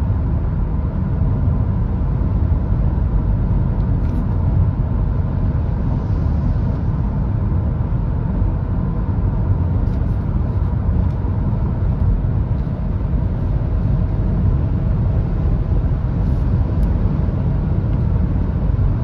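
Steady low rumble of road and wind noise inside the cabin of a Hyundai Tucson hybrid cruising at motorway speed, with faint steady engine hum underneath.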